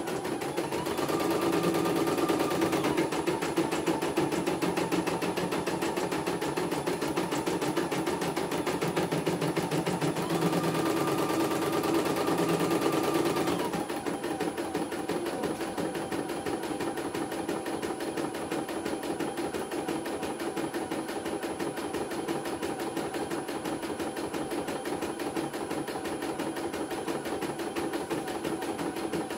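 CNY E900 computerized embroidery machine stitching a design: a fast, even clatter of needle strokes. It is louder for the first half and drops to a softer clatter about fourteen seconds in.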